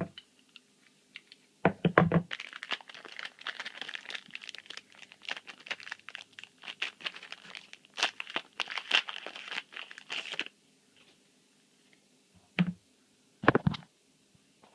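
Foil booster-pack wrapper crinkling and being torn open by hand. There are a few soft thumps, one about two seconds in and two near the end.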